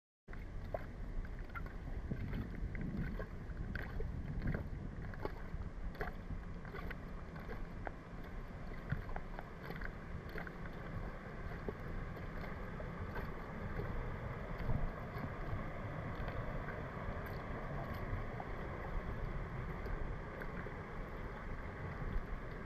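Wind rumbling on the microphone over a steady rush of water from a shallow rocky river, with scattered faint clicks.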